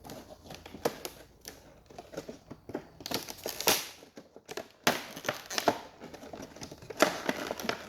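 Paper and cardboard packaging being handled: rustling and crinkling with scattered irregular clicks and taps.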